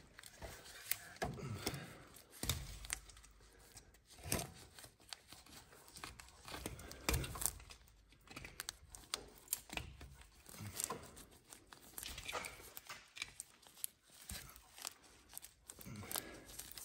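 Irregular crinkling, scraping and small clicks as a latex-gloved hand works behind a rusty steel frame member.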